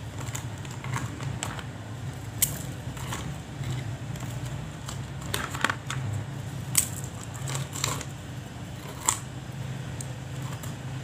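Coconut crackers being broken and pushed into a plastic cup of layered dessert: scattered sharp snaps and clicks of cracker and plastic, over a steady low hum.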